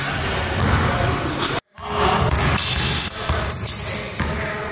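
Basketballs bouncing on a hardwood gym floor during shooting drills. The sound cuts out abruptly for a moment about a second and a half in.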